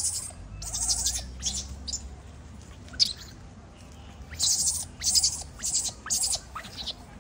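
Newborn macaque giving a series of short, shrill distress shrieks, coming quickly one after another near the end, over a low rumble.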